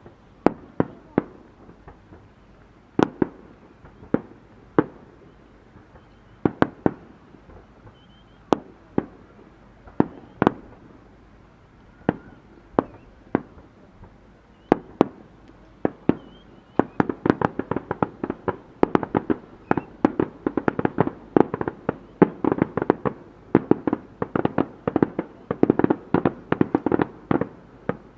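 Fireworks bursting overhead: single sharp bangs a second or two apart, then a little past halfway a dense barrage of rapid bangs and crackles.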